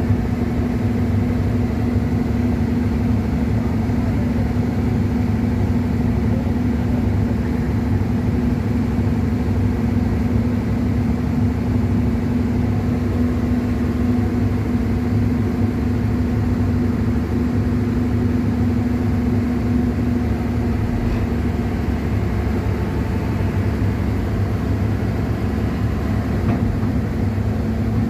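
Excavator's Cummins diesel engine running steadily at a constant speed, a continuous even hum with no change in pitch.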